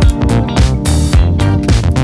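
Upbeat funk-style background music with bass, guitar and a steady beat.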